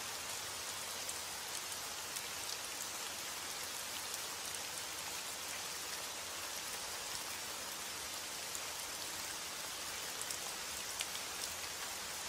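Heavy rain on a window: a steady, even hiss with scattered sharper ticks of single drops.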